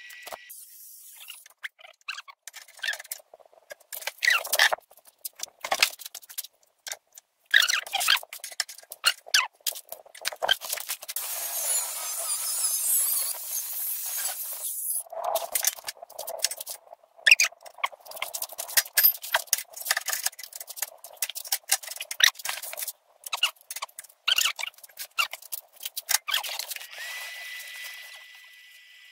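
Metalworking on a steel gas-cylinder stove: short, cut-together stretches of crackling arc welding and tools scraping and squealing on steel.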